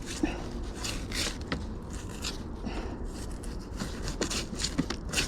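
Irregular scraping and rubbing: a string of short scuffs and scrapes with no steady rhythm.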